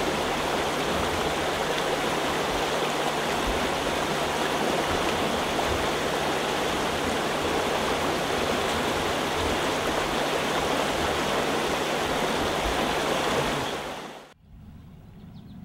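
Shallow stream water rushing and rippling steadily around a wading angler's legs. The sound drops away abruptly near the end.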